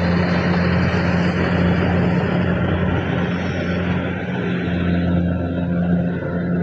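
Kubota DC104 combine harvester running steadily under load, a constant low engine hum mixed with the broad rush of the threshing machinery; the higher part of the noise eases slightly after about halfway.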